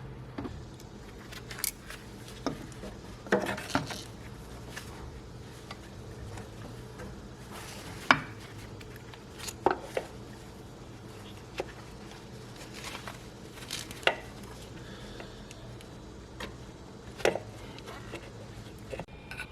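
Scattered metallic clinks and knocks of hand tools and car parts being handled in an engine bay, over a low steady hum. The loudest knock is about 8 s in.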